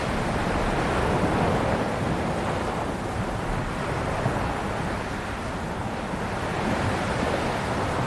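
Ocean surf: waves washing in with a continuous rushing noise and a low rumble, swelling about a second in and again near the end.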